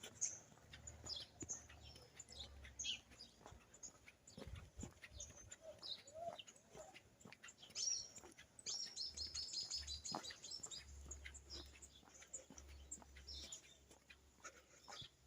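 Small birds chirping and calling, many short high notes scattered throughout, with a quick run of about ten evenly spaced notes about nine seconds in. A low rumble and a few soft thumps lie underneath.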